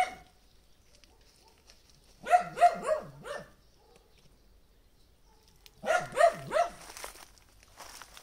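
A dog barking in two bursts of three or four short barks, one about two seconds in and another about six seconds in.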